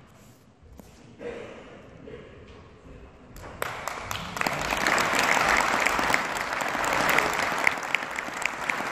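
An audience clapping. The applause starts about three and a half seconds in and builds to steady clapping, with a few sharper single claps standing out near the end.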